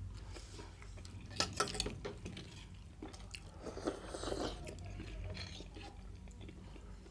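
A person chewing and biting food close to the microphone, mukbang-style, with a few sharp clicks of dishes or cutlery.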